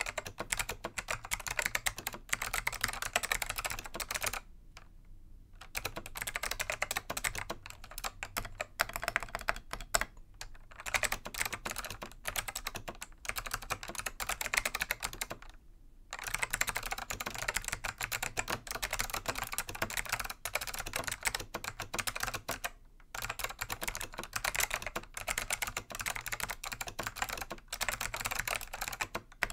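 Continuous touch-typing on a Dell AT101 keyboard with Alps SKCM Black switches, click-modded by removing the retaining tabs from the tactile leaves, giving a dense run of sharp keystroke clicks. The typing breaks off briefly about 5, 10, 16 and 23 seconds in.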